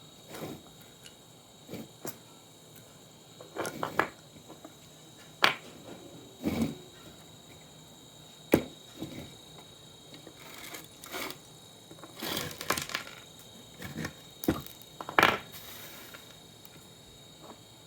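Irregular sharp clicks, snaps and knocks as an old monitor's parts are pried apart and handled, with bursts of scraping and rattling between them.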